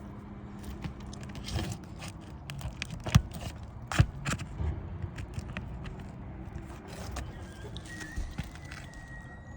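Asphalt roof shingles being worked loose: scattered clicks and scrapes, with two sharp knocks about three and four seconds in, as the shingle nails pull through.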